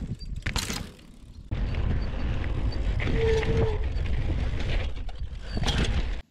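Mechanical creaking and clicking from the Mongoose Fireball dirt jump bike over a loud low rumble that starts about a second and a half in and cuts off suddenly near the end.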